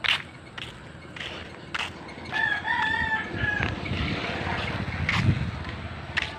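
A rooster crowing once, a wavering call lasting just over a second about halfway through. Close knocks and steps from someone walking with the phone come and go around it.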